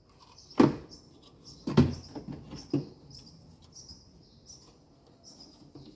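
Sharp clicks and knocks of wire connectors and terminals being handled and fitted on a washing machine's heater wiring: three loud knocks in the first three seconds, then smaller clicks. Faint, short, high chirps repeat in the background.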